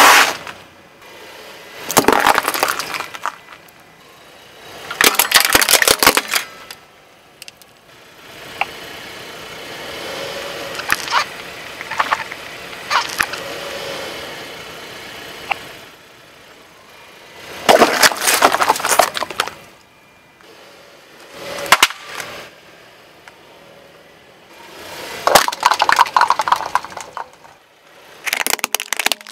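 Car tyre rolling over and crushing brittle and plastic objects, such as dry noodles and plastic toys, one after another: about six separate bursts of crunching and cracking. A quieter, steady stretch with a few clicks comes in the middle.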